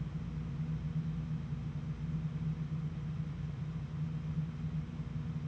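Steady low background hum with a few held tones, unchanging throughout.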